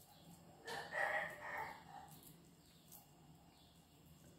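A faint animal call, lasting about a second, starting under a second in, over low steady room noise.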